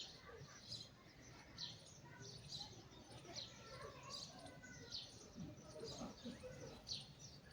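A small bird chirping over and over, short high chirps a little more often than once a second.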